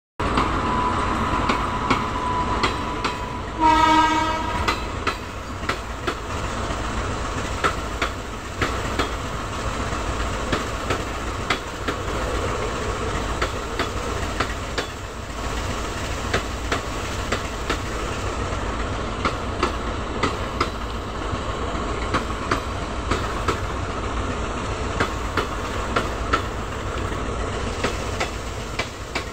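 Passenger train passing, its wheels clicking over the rail joints above a steady rumble, with one short locomotive horn blast about four seconds in.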